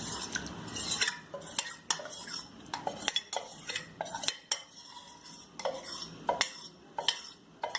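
A metal spoon clinking and scraping against pots in irregular knocks about a second apart, as cooked dal is scooped into the boiling sambar and stirred in.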